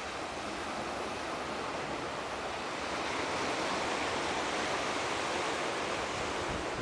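Ocean surf washing on the shore: a steady rushing wash that swells slowly and is loudest around the middle.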